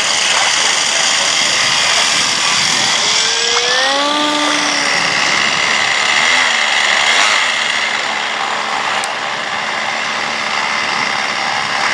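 Electric radio-controlled model plane's brushless motor and propeller whining steadily as it flies overhead.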